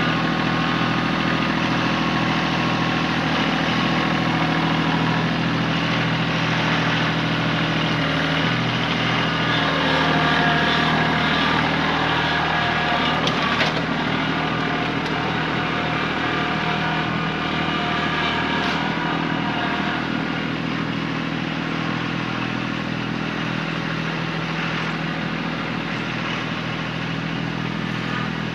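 Kubota tractor's diesel engine running steadily, with a single knock about halfway through.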